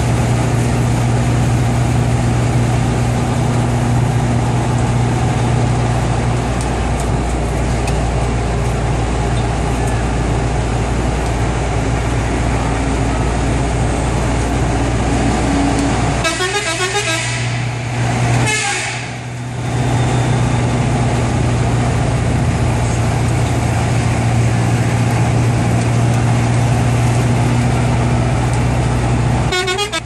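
Otokar Sultan bus's diesel engine running steadily on the move, with its air horn sounded in a burst of blasts about halfway through inside a tunnel, and briefly again at the end.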